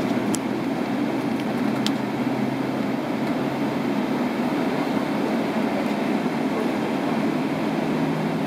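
Steady cabin noise inside a Boeing 777-300ER as it taxis: a constant low rumble and hum from its GE90 engines at taxi power and from the wheels rolling on the taxiway, with a couple of faint clicks about a second apart early on.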